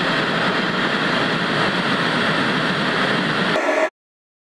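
Steady rushing static noise, like a film or TV noise effect. Near the end it shifts briefly with a click, then cuts off abruptly into dead silence.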